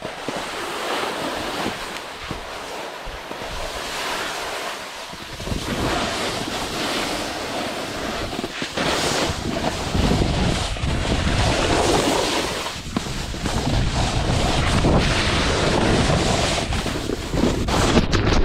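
Wind rushing and buffeting on the microphone as a snowboard slides and carves down a snow run, the board's scrape on the snow under it. The low rumble of the wind grows heavier about five seconds in and again around ten seconds in.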